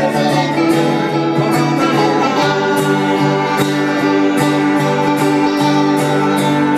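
Live folk band playing an instrumental passage with a steady beat: strummed acoustic guitar, accordion, banjo and electric guitar, with held notes over a bouncing bass line.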